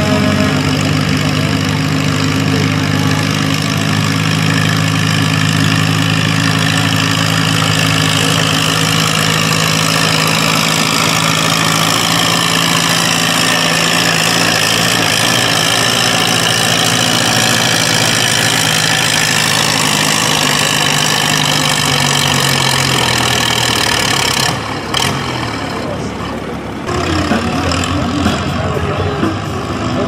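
Farmall pulling tractor's engine running hard at a steady speed as the tractor pulls down the track. The sound changes about 25 seconds in.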